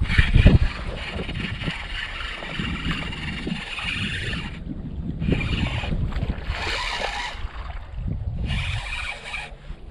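Wind buffeting the microphone while water laps against the canoe hull, with a low thump about half a second in.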